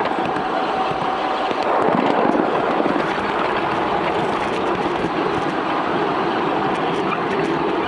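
Ride-on backyard miniature train running along its track: a steady rumble of the wheels on the rails, with light clicks throughout.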